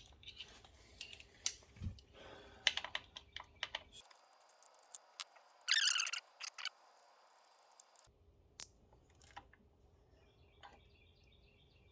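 Scattered light metallic clicks and clinks of a 3/16 Allen key and bolts being worked loose by hand, with a short louder rattling burst about six seconds in.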